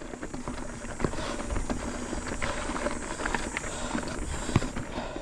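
Mountain bike on a rocky trail: tyres crunching over loose rock, with scattered knocks and rattles from the bike, one sharper knock near the end.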